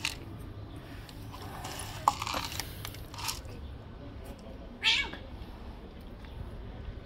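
Tabby stray cat giving one short, harsh cry about five seconds in, with a few fainter short sounds before it.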